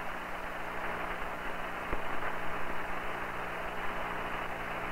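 Hiss and steady hum of the Apollo 8 air-to-ground radio link, open with no one speaking, with a faint click about two seconds in.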